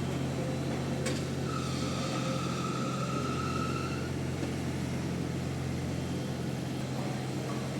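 Engine of heavy construction equipment running steadily with a low hum. There is a short click about a second in and a thin steady whine from about a second and a half in that lasts some two and a half seconds.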